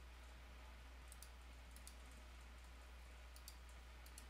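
Near silence with a few faint computer mouse clicks, heard in twos, over a steady low electrical hum.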